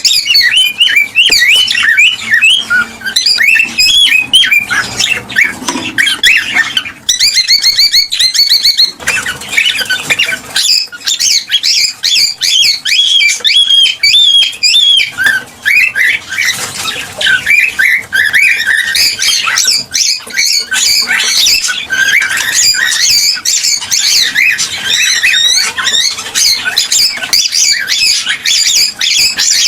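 Cockatiels calling without a break: loud chirping, squawking and whistled notes, with a quick run of rapid repeated notes about a quarter of the way in. Excited cockatiel calling of the kind played to pairs to stimulate mating.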